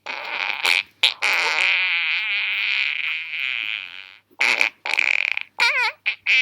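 Fart sounds: a short one, then one long fart with a wavering pitch lasting about three seconds, followed by several short rapid ones near the end.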